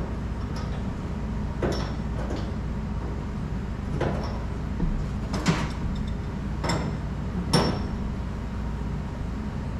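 Scattered sharp metal clinks and knocks, about five spread a second or more apart, from tools and fittings as a commercial faucet is tightened down onto its lock nut. A steady low hum runs underneath.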